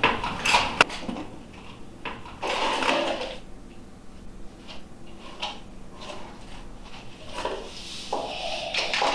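Art supplies being handled and lifted out of a cardboard shipping box: sharp clicks and knocks in the first second, a longer rustle of packaging about two and a half seconds in, then scattered smaller knocks and rustles.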